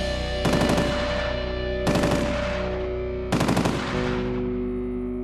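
Three short bursts of automatic fire from an armoured personnel carrier's turret machine gun, about a second and a half apart, over held notes of background music.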